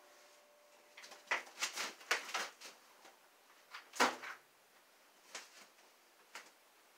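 Window sash being handled and fitted back into a double-hung window frame: a run of knocks, clicks and scraping, one louder knock about four seconds in, then a few lighter clicks as it settles into place.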